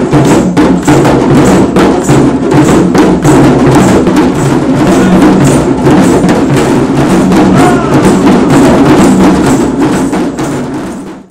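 A group of djembe hand drums played together in a fast, even rhythm; it fades out near the end.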